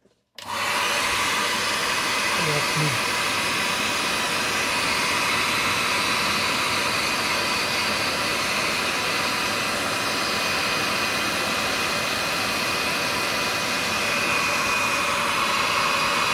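Electric heat gun switched on about half a second in and blowing steadily, an even rush of air with a faint whine, while shrinking a sleeve of black heat-shrink tubing onto a voltage tester's probe.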